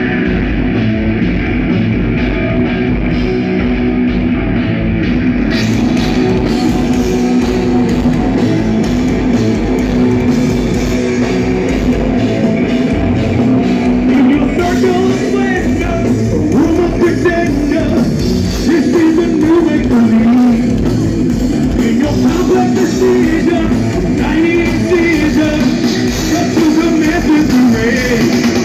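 Live progressive metal band playing loud through a club PA: distorted guitars, bass and drums with a sung melody over them, heard from the audience.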